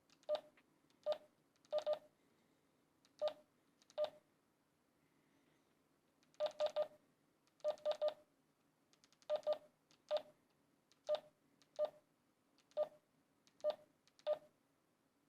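Keypad beeps from a Retevis RT3 (a rebadged TYT MD380) DMR handheld radio as a text message is typed multi-tap style: short high beeps, some single and some in quick runs of two to four presses, with a brief pause about five seconds in.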